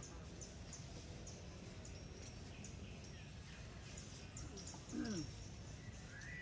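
Quiet outdoor ambience with faint, repeated high bird chirps over a steady low background hum. A brief low falling call comes about five seconds in, and a short rising bird call near the end.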